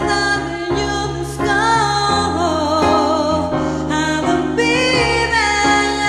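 A song: a singing voice with vibrato over a piano accompaniment.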